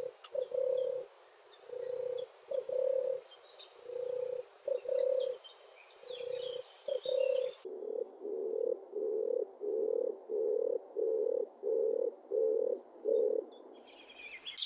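Dove cooing. Soft low coos come in repeated short phrases, with faint chirps of other small birds behind them. About seven and a half seconds in, the background changes and a steady run of about nine evenly spaced coos follows.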